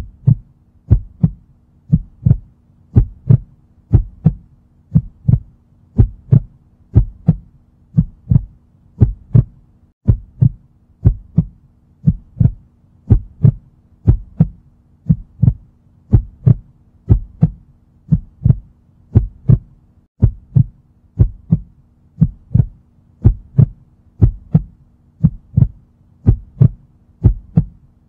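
Heartbeat sound effect: a steady double thump, lub-dub, repeating about once a second, with a faint steady hum underneath.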